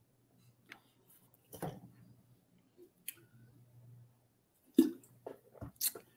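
Small handling and drinking noises from a mug: sips with scattered clicks and knocks, the loudest a sharp knock just under five seconds in, followed by a few more quick ones.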